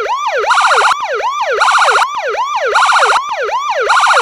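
Electronic police-car siren. It alternates a quick falling-and-rising yelp with a short steady high tone, the cycle repeating about once a second.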